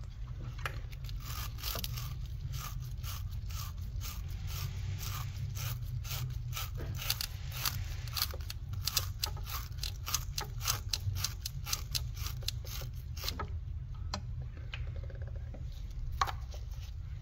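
Battery terminal cleaning brush scraped back and forth inside the negative battery cable's terminal clamp. Rapid repeated scraping strokes stop about thirteen seconds in, followed by a few scattered scrapes and clicks.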